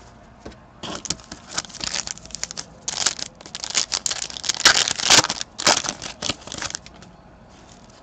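A foil hockey card pack (2012-13 Panini Certified) being torn open by hand. It crinkles and rips in a quick run of crackles from about a second in, stopping about a second before the end.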